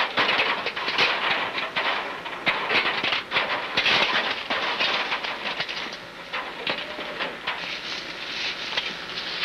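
Irregular rustling and crackling of dry brush and leaves as people move through it on foot, with many small snapping clicks.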